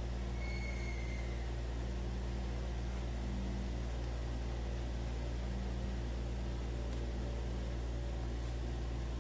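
Steady low electrical hum.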